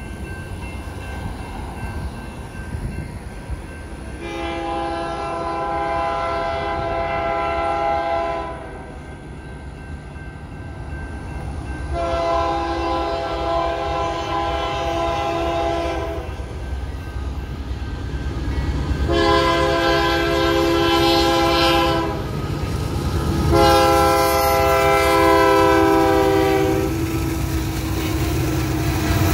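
Union Pacific freight locomotive's multi-note air horn sounding four blasts for a grade crossing, each several seconds long, over the low rumble of the diesel locomotives and train, which grows louder as the train reaches the crossing.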